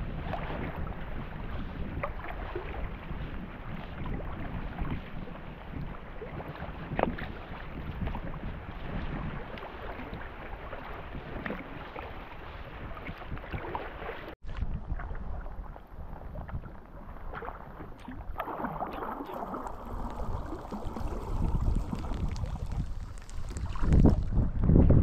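Kayak paddled across choppy lake water: water splashing and lapping at the hull with the strokes of a wooden paddle, and wind buffeting the microphone. The sound breaks off and changes abruptly just past halfway, and the wind rumble is louder near the end.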